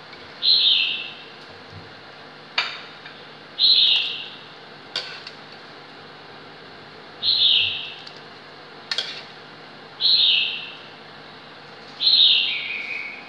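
A short high squeal that falls in pitch, repeated five times every two to three seconds, with sharp knocks between them as a ladle scoops stir-fried chicken into a pot of boiling water.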